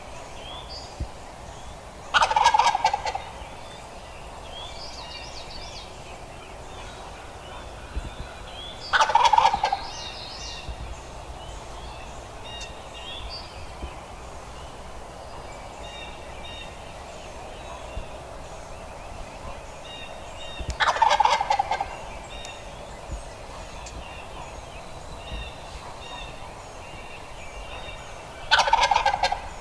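Wild turkey gobbler gobbling four times, each gobble a rapid rattling call about a second long, spaced roughly seven to twelve seconds apart.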